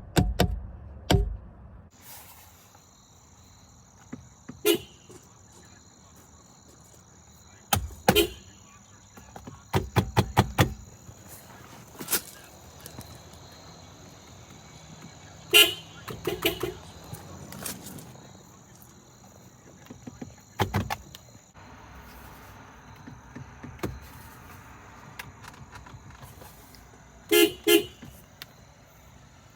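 Car horn sounded in a series of short honks and taps, spread out with pauses between them, including a quick run of four or five toots about ten seconds in and a close pair of honks near the end.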